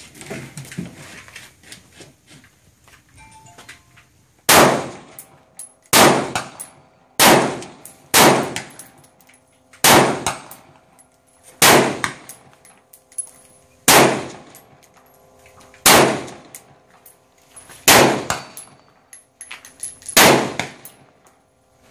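A series of about ten single gunshots, fired one at a time every one to two seconds, each followed by a short metallic ring of steel targets being struck.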